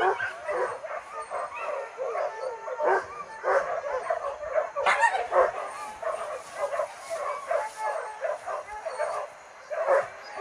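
A pack of hunting dogs yelping and baying without pause, many voices overlapping, on the chase of a wild boar. One sharper, louder yelp comes about five seconds in.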